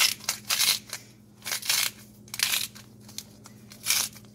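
Hand-twisted spice grinder grinding salt crystals: a series of short, gritty crunching scrapes, one with each twist of the grinder's head.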